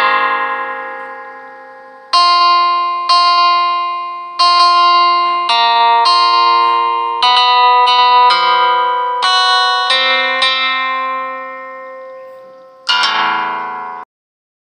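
Background music on a plucked guitar: slow single notes and chords, each ringing out and fading, ending on a strummed chord about thirteen seconds in before the music cuts off abruptly.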